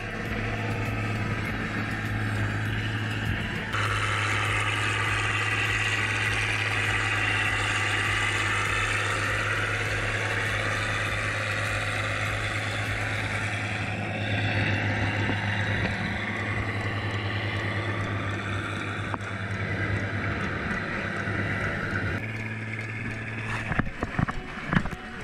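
Tractor engine running steadily as the tractor works through a flooded rice paddy, with a constant hum and a hiss of churning water and mud. A few sharp knocks come near the end.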